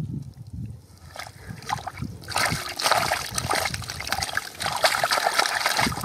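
Wet mud and shallow water splashing and slopping as a plastic basket is scooped through a mud pool and lifted, muddy water dripping and trickling through its holes. The splashing gets much louder about two seconds in.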